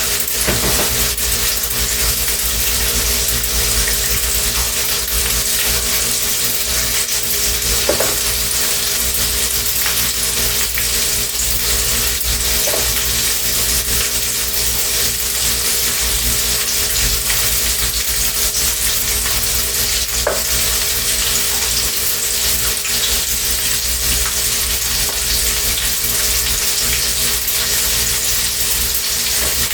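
Sausage, onions and bell pepper frying in a pan: a steady sizzle, over a constant hum and low rumble, with a few faint clicks.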